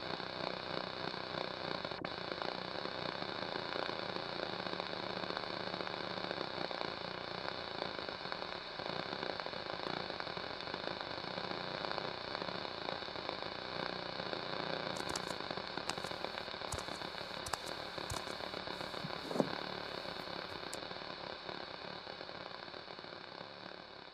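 Steady television-static hiss and crackle played over the arena sound system, with one brief pop late on, fading slowly near the end.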